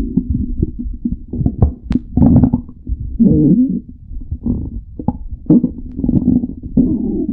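Human stomach growling: a run of gurgles and bubbly rumbles broken by short, wavering growls, one rising and falling in pitch about three seconds in.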